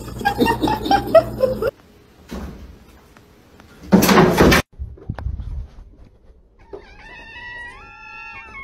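Wet cat crying during a bath in a sink, then a loud, brief noise about four seconds in. High-pitched calls start near the end.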